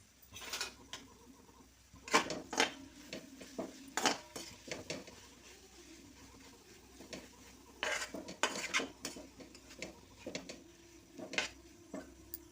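A metal utensil stirring vegetables in a pan, scraping and clinking against the pan in short spells, with pauses between them.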